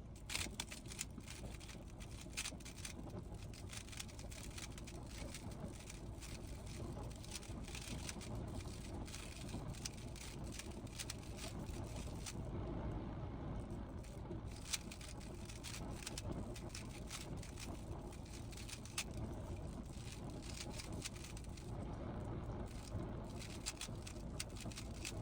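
Rubik's cube being turned by hand: irregular runs of quick plastic clicks as the layers turn, over a steady low background hum.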